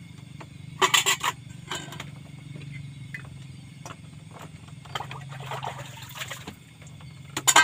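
Metal cooking pots and a pan handled on a bamboo platform floor: a burst of clattering about a second in, scraping around five to six seconds in, and another sharp clatter near the end. A steady low hum runs underneath.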